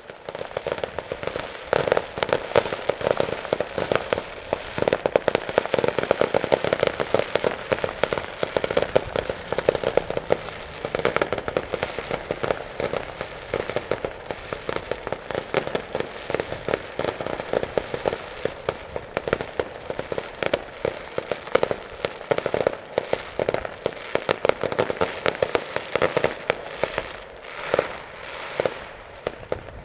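Fireworks display: a dense, continuous barrage of sharp bangs and crackling from aerial shells and low-level effects, with no pause.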